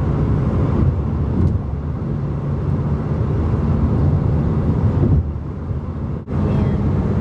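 Steady low hum and rumble of a moving car, heard from inside the cabin, with a brief break about six seconds in.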